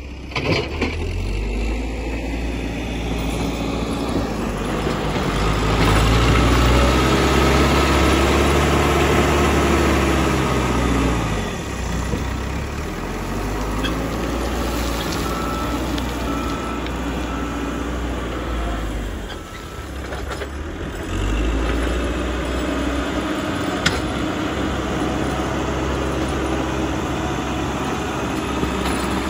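Caterpillar 434E backhoe loader's diesel engine running and revving up and down under load as the machine pushes and dumps earth with its front bucket, with an occasional sharp clank.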